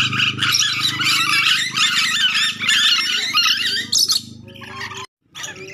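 Nuri dora lorikeets squawking and screeching in a fast, dense chatter of shrill calls, which thins out about four seconds in. A steady low hum runs under the calls, and the sound drops out briefly near the end before fainter calls resume.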